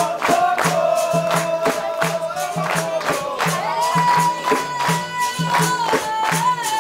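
Capoeira roda music: berimbaus and percussion keeping an even rhythm under steady handclaps, with a voice singing long held notes, the second one higher than the first.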